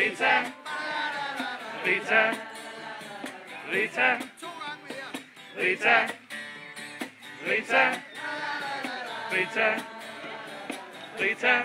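A group of adults singing a song together in unison, accompanied by a strummed acoustic guitar.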